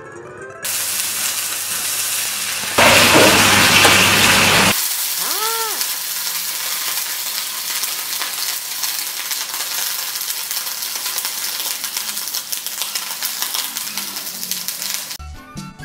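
Shrimp frying in hot oil in a frying pan: a loud, steady sizzle and spatter, loudest for about two seconds near the start. A short ringing tone rises and falls about five seconds in.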